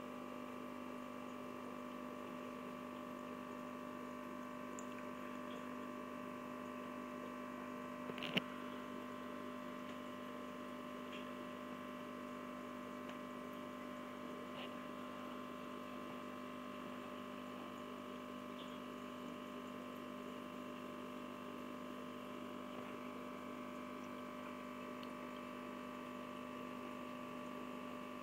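Steady electrical hum of running aquarium equipment, with a faint water sound under it. A single sharp click about eight seconds in.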